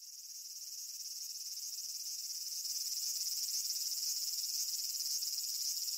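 A steady, high-pitched chorus of summer insects that grows louder over the first three seconds, then holds steady.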